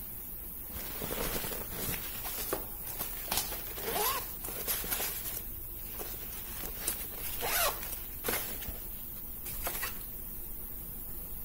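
Suitcase zipper being pulled in short strokes, two longer pulls about four and seven and a half seconds in, among scattered clicks and knocks.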